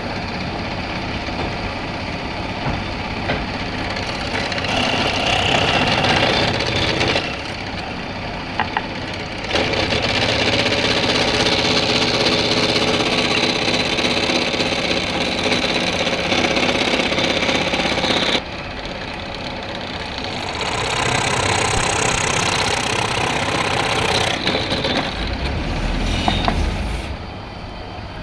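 An electric woodworking machine running, its motor note and the cutting noise rising and falling in sections as the wood is pressed against it and eased off.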